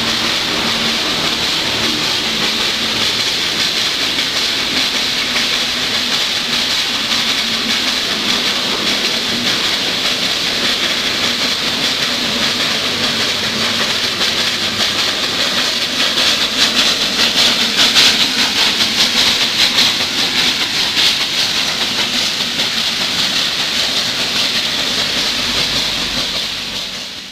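Nilgiri Mountain Railway steam locomotive blowing off steam in a steady loud hiss. The hiss swells for several seconds past the middle, then dies away at the end.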